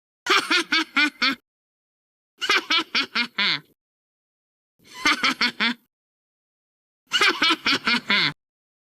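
Cartoon character Vendetta laughing: four separate short laughs, each a quick run of 'ha-ha-ha' about a second long, with dead silence between them; some end on a falling note.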